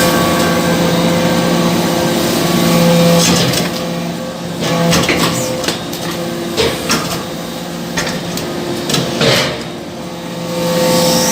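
Hydraulic scrap-metal briquetting press running: a steady hum from its hydraulic power unit, with scattered metallic clanks and knocks, and a rising whine near the end.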